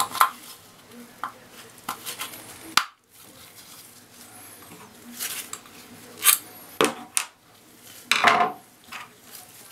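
Small metal faucet hardware being handled: scattered clinks and clicks, several sharper knocks, and a short scrape a little past eight seconds in.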